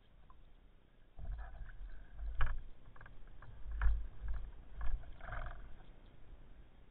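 Muffled underwater knocks and rumbling, with three sharper clicks, as a speared dentex is handled on the speargun shaft close to the camera. It starts about a second in and dies down near the end.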